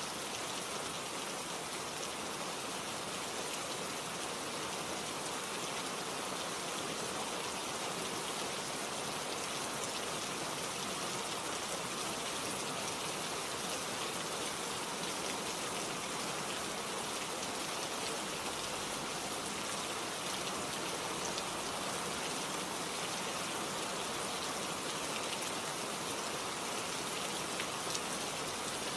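Steady rain falling, an even hiss of drops pattering on a surface.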